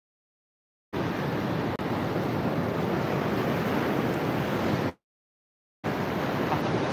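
Steady rush of ocean surf with wind on the microphone. The sound cuts out to dead silence for about the first second and again for about a second near five seconds in, where the audio drops out.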